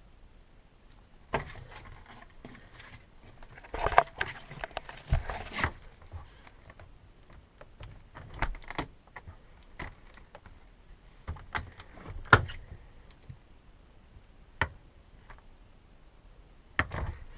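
Scattered light clicks and knocks from handling the refrigerator door and its newly fitted hinge, busiest about four to six seconds in and again around twelve seconds.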